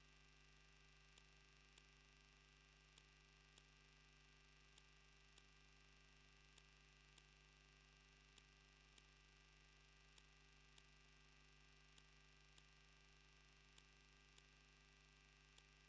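Near silence: a faint steady electrical hum with soft regular ticks, about one a second in pairs, from a camera's faulty audio feed.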